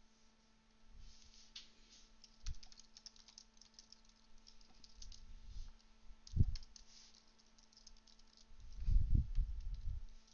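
Typing on a computer keyboard in quick runs of key clicks, with a few dull low thumps, the loudest near the end. A faint steady electrical hum runs underneath.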